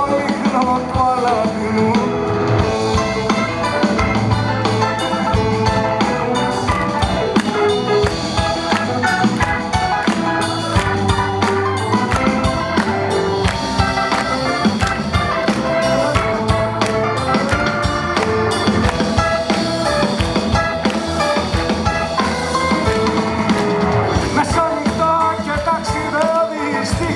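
A live band plays an instrumental passage of a Greek rock song: drum kit, electric bass and keyboards, with a steady drum beat and no singing.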